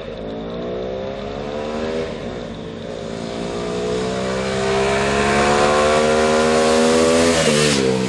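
A motorcycle accelerating towards and past. The engine note climbs, dips at a gear change about two seconds in, then climbs and grows louder before dropping in pitch as the bike passes near the end.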